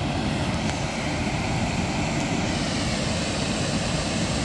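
Steady rushing roar of water jetting from the dam's outlet into the gorge below.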